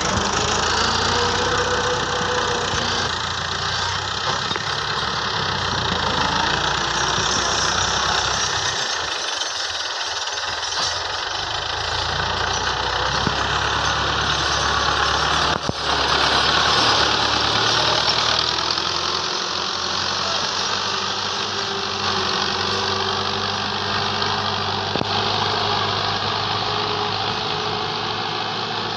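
New Holland 640 tractor's diesel engine running steadily as it pulls a disc plough through the soil.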